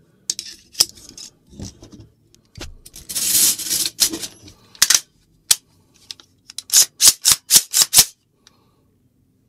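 AR-15 rifle parts being fitted together by hand: scattered metal clicks, a sliding metal scrape about three seconds in, then a quick run of about seven sharp clicks near the end.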